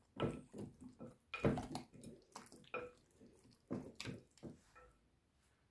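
Raw chicken drumsticks being turned with a wooden spoon in spiced oil in a glass bowl: short, irregular wet squelching strokes that stop shortly before the end.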